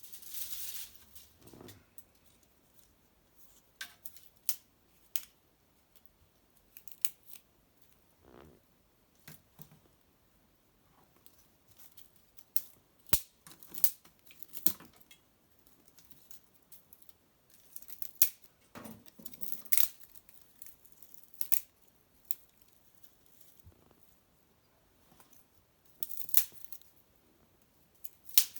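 Dry maple brushwood crackling as it burns in a small fire: sharp snaps and pops at irregular intervals, with short rustling bursts between them.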